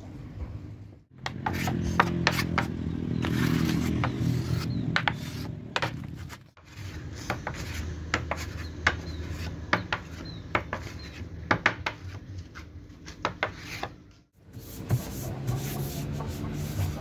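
A flat wooden stick scraping contact glue across a wooden board, with many short scrapes and sharp clicks. Near the end, hands rub a veneer sheet down onto the glued board. The sound breaks off briefly three times.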